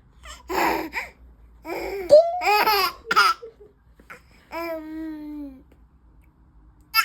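Baby laughing in short bursts, then one long drawn-out voice note that falls slightly in pitch.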